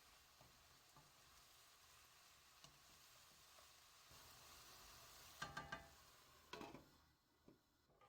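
Faint sizzling of food frying in a pan, with two short metallic clatters of a utensil against the cookware about two thirds of the way through; the sizzle fades near the end.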